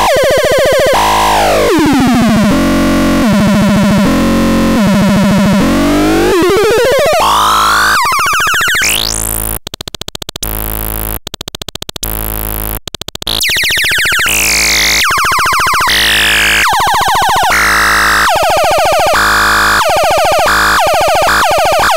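Electronic synthesizer sounds: buzzy tones that glide down in pitch and then sweep up, chopped into fast stuttering pulses. About ten seconds in, blasts of harsh hiss cut on and off a few times, then higher sweeping tones return over the chopped pulses.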